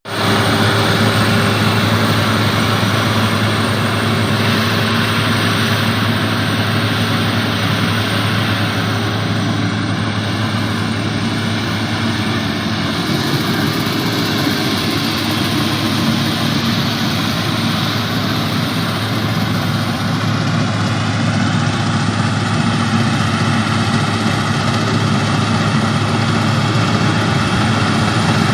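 Maxxi Bimo Sakti combine harvester running at a steady engine speed: a constant low engine hum under a wide, even rush of machine noise.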